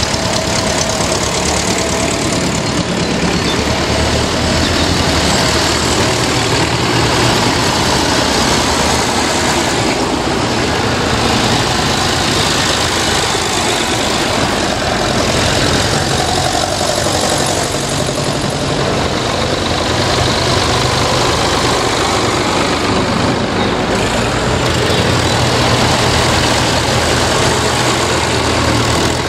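Vintage tractors driving slowly past one after another, their engines running at a steady low note: grey Ferguson tractors and then a blue Fordson Major.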